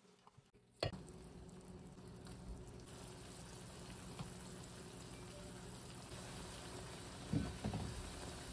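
Pot of chicken broth boiling on the stovetop: a steady, quiet bubbling hiss that starts suddenly about a second in. Near the end come a few soft knocks as a utensil is worked in the pot.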